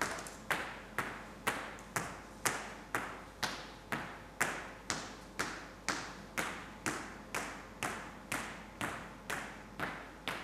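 Hard-soled shoes stepping at an even, deliberate pace on a stage floor, about two steps a second, each step echoing briefly in the large hall.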